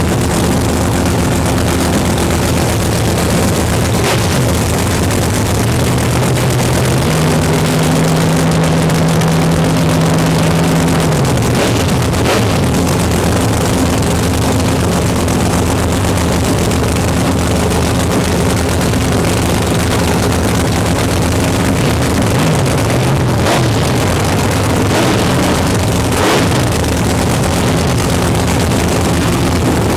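Nitro funny car's V8 idling with a loud, rough cackle through open zoomie headers. About six seconds in it is revved up, held for around four seconds, then drops back to idle.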